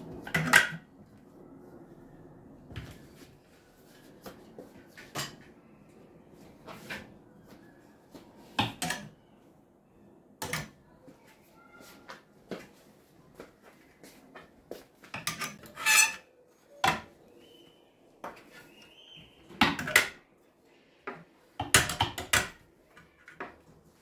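Metal hanger hooks clacking and scraping on a metal wardrobe rail as shirts on hangers are hung up and pushed along, in irregular sharp clacks with a couple of quick clusters.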